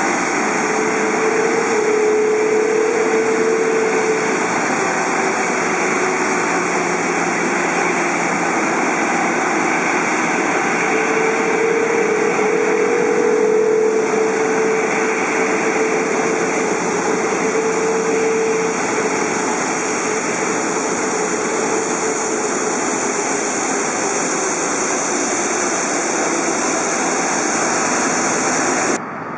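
Jet engines of a Boeing 777-200ER, Rolls-Royce Trent turbofans, running: a loud steady rushing noise with a humming tone that wavers in pitch, cutting off abruptly near the end.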